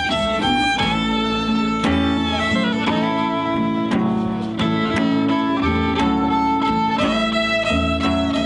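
Band playing an instrumental passage: a violin melody over guitar and low bass notes.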